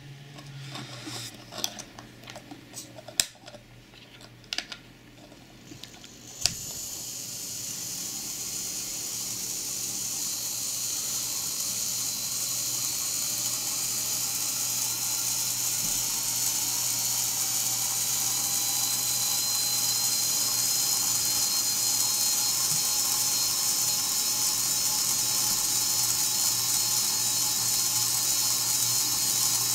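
A few sharp clicks, then about six seconds in a small electric motor and belt drive start spinning a range-finding sensor head: a steady high-pitched mechanical whir that grows slowly louder.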